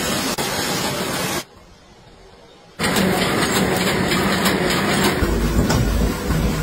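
Factory machinery running: a bamboo slivering machine splitting bamboo into strands, then, after a short drop in level about a second and a half in, a bamboo mat loom running with rapid clicking, and near the end a roller press with a low hum.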